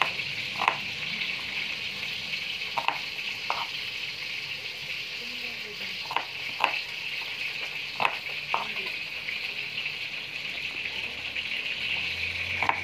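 A pan sizzling steadily on the stove as food fries. About seven short, scattered knife taps on a plastic cutting board during the first eight seconds.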